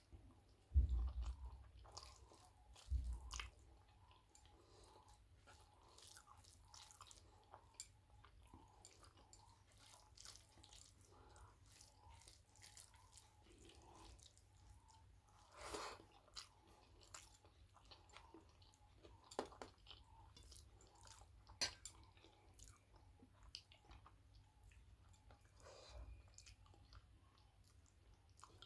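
Close-miked chewing and mouth sounds of a person eating rice with potato and drumstick curry: soft wet clicks and squishes. Two low thumps come about a second and three seconds in.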